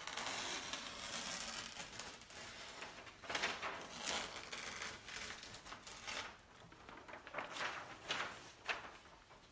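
A large flip-chart paper sheet being torn from the top of the pad and handled: paper tearing, rustling and crackling in several spells.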